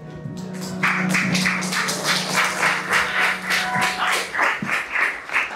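Music with a fast, even beat of sharp percussive hits, about four a second, over a low held note that drops out about four seconds in.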